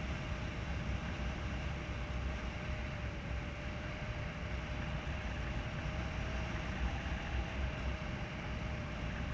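Steady wind rush and low buffeting over an action camera's microphone in paraglider flight, with a faint steady tone running under it.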